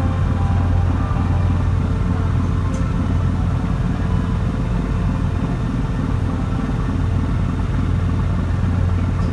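Engine of a harbour cruise boat running steadily at cruising speed, a constant low hum and rumble heard from on board.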